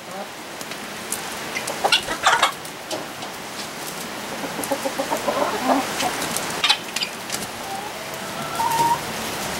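Chickens clucking, with several short calls spread through and a brief held note near the end, amid scattered sharp clicks.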